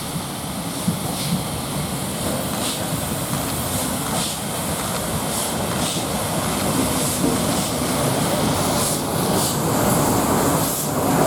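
LNER A3 Pacific steam locomotive Flying Scotsman running light engine with its support coach: a steady rail rumble with a hiss, growing slightly louder toward the end.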